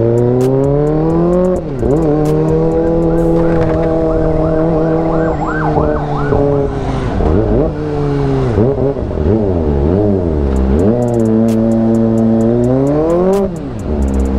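Kawasaki ZX-25R's 250 cc inline-four, through an AR full-system exhaust, revving up and dropping in pitch at each upshift: about a second and a half in, around eight seconds, and near the end. In between, the revs rise and fall quickly several times as the throttle is blipped on and off.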